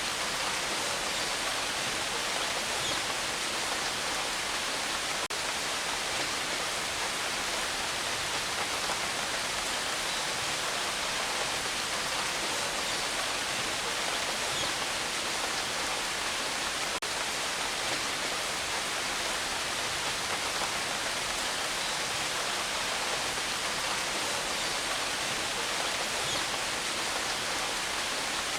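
Steady rain falling, an even continuous hiss with no thunder.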